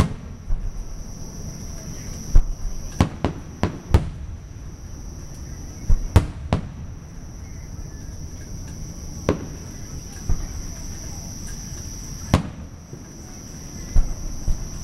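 Aerial fireworks shells bursting with sharp bangs: a quick run of them a couple of seconds in, then single bangs every few seconds. A steady high insect chorus of crickets or katydids runs beneath.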